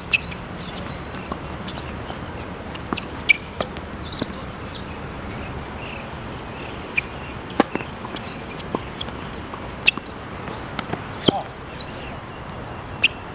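Tennis balls being struck by rackets and bouncing on an outdoor hard court: short, sharp pops at irregular intervals, a second or more apart, over a steady background hiss.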